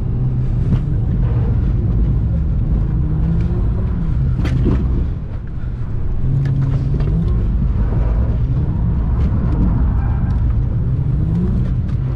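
Naturally aspirated Ford FG Falcon engine heard from inside the cabin, revving up and down with the throttle as the car is driven around a wet skid pan. The revs drop back briefly about five seconds in before climbing again.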